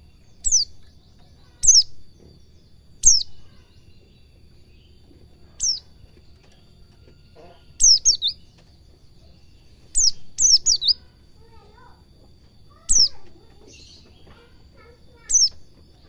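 Caged white-eye (pleci) calling: sharp, high chirps that slide down in pitch, some single and some in quick runs of two to four, every one to three seconds.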